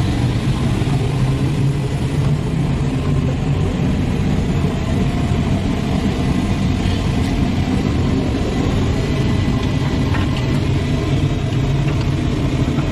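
Engine running steadily: a loud, even low rumble with a faint steady high whine over it.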